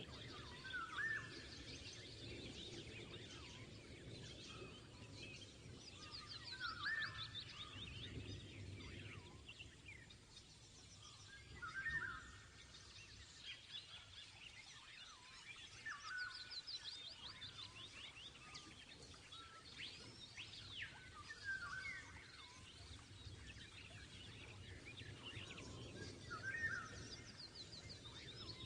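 Birds singing: short rising calls repeated every few seconds and bursts of fast, high trills over a faint background hiss. No mixer motor is heard.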